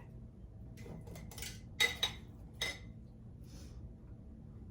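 Several sharp clinks and taps against glass quart canning jars as pork ribs are packed into them, the loudest pair about two seconds in.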